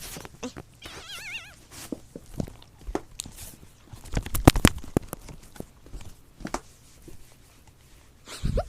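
Kitten scuffling and pouncing on a person's foot: a scatter of knocks and thumps, busiest and loudest around the middle. A short warbling cry comes about a second in, and a brief cry near the end.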